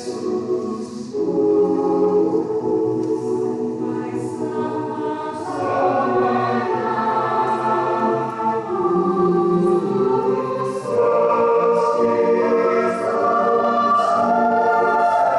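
Mixed choir of women's and men's voices singing a hymn in harmony, with held chords that shift as the words change.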